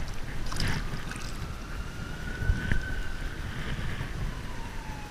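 Wind buffeting the microphone, with a distant siren's faint slow wail gliding up and then down. A short burst of noise comes about half a second in.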